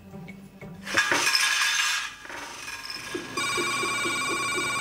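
A sudden loud noisy burst lasting about a second, then a telephone starts ringing with a steady electronic tone about three and a half seconds in.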